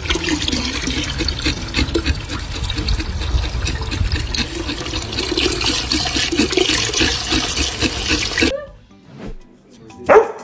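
Water from a garden hose pouring and splashing steadily into a plastic barrel with a German Shepherd sitting in it; it stops abruptly about eight and a half seconds in. Near the end a dog barks once, loudly.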